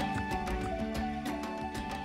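Background music with a steady beat, fading out.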